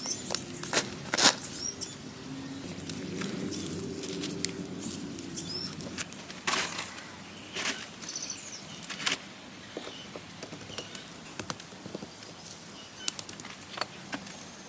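Irregular sharp knocks and rustling, typical of hand work with wood and earth in a forest. A low hum runs for a few seconds in the first half, and a few faint bird chirps come through.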